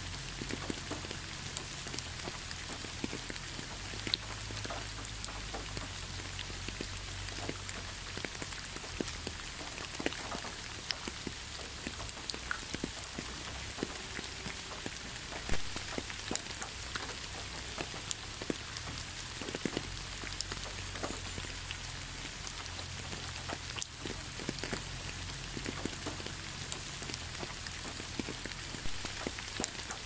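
Waterfall: a steady hiss of falling water peppered with many small splashes and drips.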